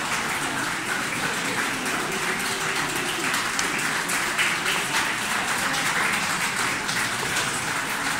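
Crowd applauding steadily, a dense even patter of many hands clapping.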